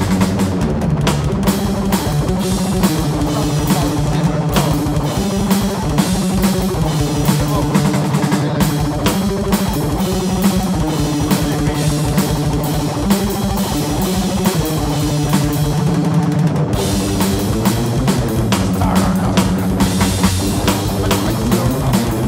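Metal band rehearsal recording: fast, dense drumming on a full drum kit with bass drum under distorted guitar riffs. The kick drum drops out briefly twice.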